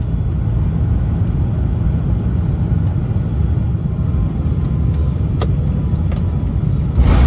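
Airliner cabin noise on final approach: the steady low rumble of an Airbus A350-1000's engines and airflow, heard from inside the cabin. The noise rises suddenly and grows louder near the end.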